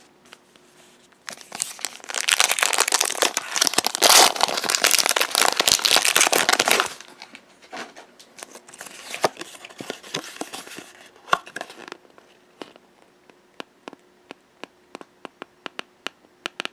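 Foil wrapper of a Pokémon booster pack crinkling loudly as it is opened and handled for about five seconds. Then quieter crinkles and light, scattered clicks and taps as the cards are taken out and handled.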